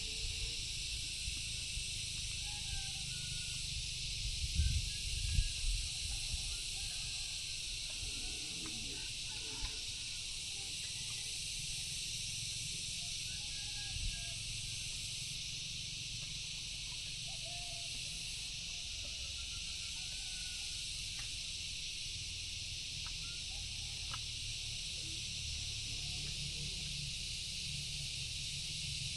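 Outdoor lakeside ambience: a steady high-pitched drone of insects with faint, scattered bird chirps over a low rumble. A few soft knocks about four to six seconds in.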